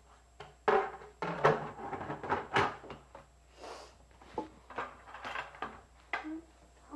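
A run of irregular knocks, clunks and scrapes from a plastic bucket being handled, with hands and objects moving inside it.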